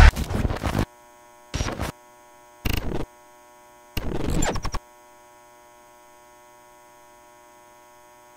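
Logo outro sound effect: four short bursts of glitchy digital static in the first five seconds, then a faint, steady electrical hum that carries on alone.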